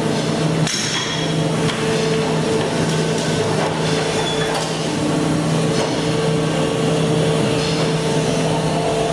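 Brokk 160 demolition robot working its hydraulic breaker: continuous hammering over a steady hum from its hydraulic power pack, as it breaks out worn mill liners.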